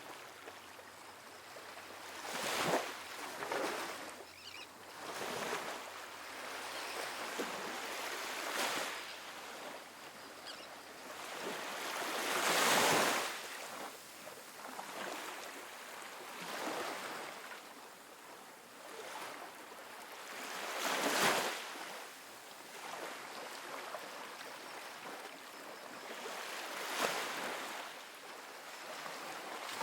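Small ocean waves breaking and washing up a sandy beach, each wave rising in a hiss and fading away, with the loudest breaks a few seconds apart.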